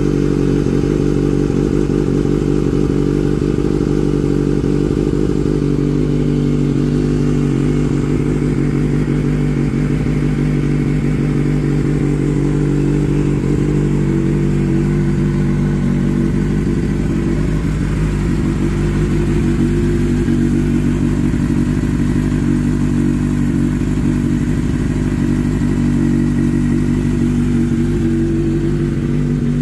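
2024 Kawasaki Ninja ZX-6R's 636 cc inline-four engine idling steadily through an aftermarket M4 exhaust.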